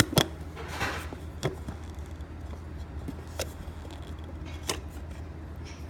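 Light clicks and taps of a fingertip and thumbnail on the lid of a lacquered soup bowl as it is pressed to free it. About six sharp ticks are spread out, with a short scrape near one second in, over a steady low hum.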